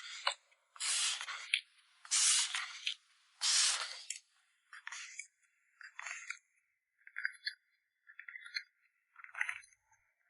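Plastic packing materials being handled while photocards are packed. Three long sliding, rustling strokes come in the first few seconds, followed by a run of small crinkles and rustles.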